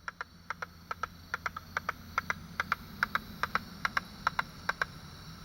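Song of the small katydid Leptoteratura albicornis, ultrasonic near 60 kHz, made audible through a bat detector as a series of sharp clicks in close pairs, about two pairs a second. The clicks grow louder and stop a little before five seconds in, over the detector's steady hiss.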